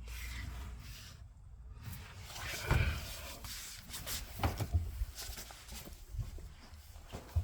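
Scattered soft knocks and thumps over a low rumble, the loudest about a third of the way in.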